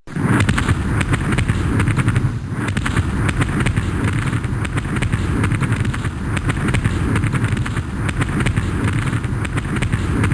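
War battle sound effect: rapid crackling bangs like gunfire over a continuous heavy low rumble of explosions.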